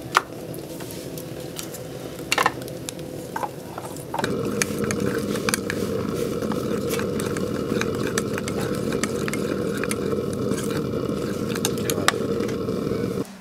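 A metal spoon stirring a wet spice paste in a small ceramic bowl, clinking and scraping against the sides many times, over a steady hum that gets louder about four seconds in.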